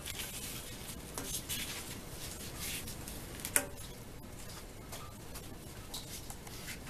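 Gloved hands handling metal parts and an old gasket at a steel wood boiler's coil port: scraping and light clinks, with one sharp metal clink about halfway through.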